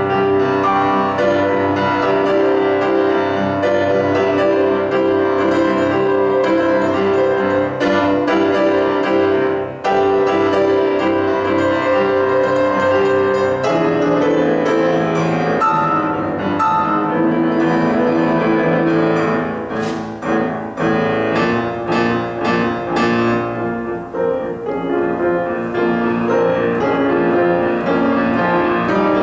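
Solo grand piano playing a Romantic-style harmonization of a Zuni melody, with full sustained chords over steady repeated notes. About halfway the texture changes, and the second half has shorter, separated chords.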